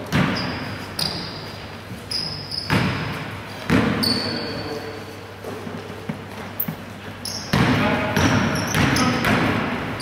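Basketball bouncing on a wooden gym floor during play, with short high sneaker squeaks and players' voices calling out. The sounds echo around a large sports hall.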